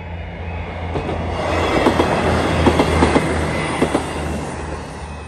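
East Midlands Railway Class 158 diesel multiple unit passing over the level crossing. The rush of the train swells and fades, with a handful of sharp clicks as its wheels cross the rail joints.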